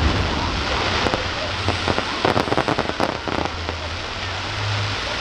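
Aerial fireworks crackling: a dense, rain-like crackle of crackling effects, with a flurry of sharper pops between about two and three and a half seconds in, then easing into a fainter hiss.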